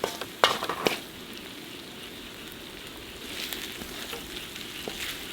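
Food frying on a camping griddle with a steady sizzle. A spatula scrapes and taps the pan three times in the first second.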